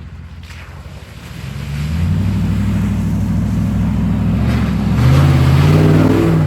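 4x4 truck engine pulling under load off-road, revving harder about five seconds in with its pitch climbing, then cutting off suddenly.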